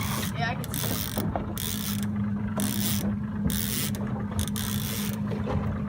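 Fishing reel being cranked in, its gears whirring steadily, over the constant low hum of the boat's engine at trolling speed.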